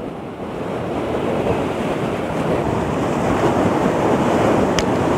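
Ocean surf washing over the rocks, a steady rush that builds gradually, with a short click near the end.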